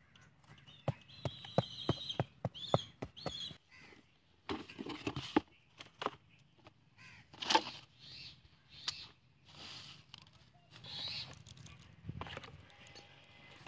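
Hands handling a cardboard box and small objects on dry dirt, making scattered clicks, taps and knocks. Birds call a few times in the background.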